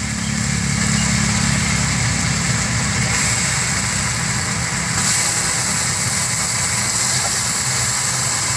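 Wet lote fish sizzling as it goes into hot oil and masala in a steel wok: a steady frying hiss over a low hum.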